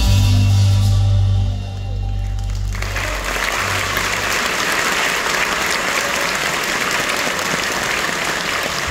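A marimba band with drum kit and bass guitar ending its piece on a held final chord, the low bass ringing and fading over the first few seconds, then an audience applauding steadily from about three seconds in.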